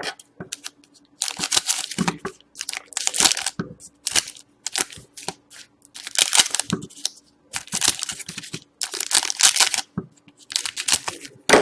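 Hockey card pack wrappers crinkling and tearing, with cards and packaging handled on a table, in irregular bursts a second or so long with short pauses between.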